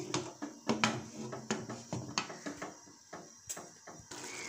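Aluminium pressure cooker lid being fitted and twisted shut: irregular light clicks and knocks of metal on metal. About four seconds in, this gives way to a steady hiss.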